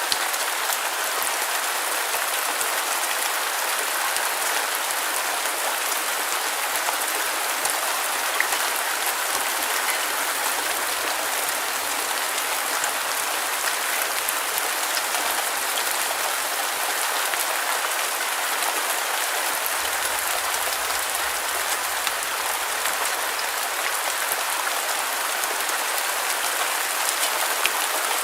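Steady rain falling, a constant hiss of drops with faint scattered ticks of individual drops.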